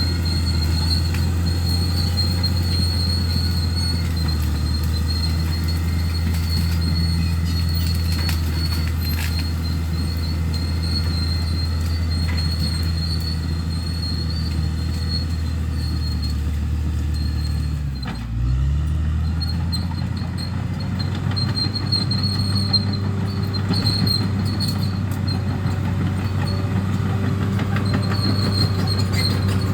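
Bulldozer's diesel engine running steadily under load, with a thin high squeal above it. About two-thirds of the way through, the engine note drops sharply for a moment and then climbs back up.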